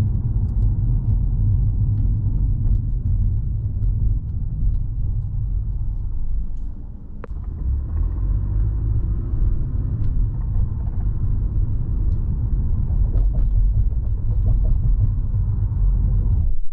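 Low, steady rumble of a car driving, heard from inside the cabin: engine and road noise, dipping briefly about seven seconds in.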